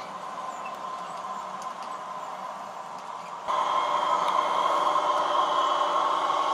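H0e narrow-gauge model trains running: a steady electric motor hum with a constant whine and light rolling noise from the wheels on the track. It steps up abruptly and stays louder about three and a half seconds in.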